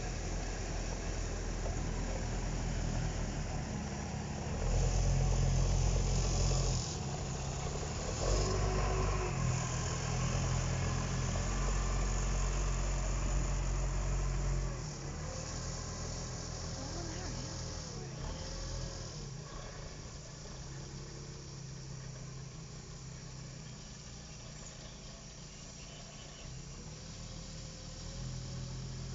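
Diesel shunting locomotive J.B. Snell running at low speed as it moves a short train past close by. Its engine is loudest for about ten seconds in the middle, stepping up a couple of times, then fades as the locomotive draws away.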